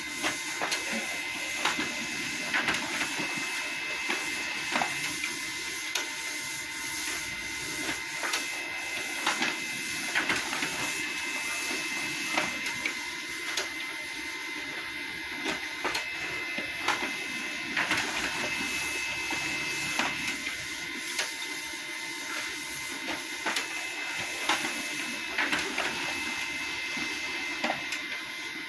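Canon laser printer running continuously, feeding and printing one page after another. It makes a steady mechanical whir under a constant high whine, with a second, higher whine that comes and goes every seven or eight seconds and frequent clicks from the paper feed.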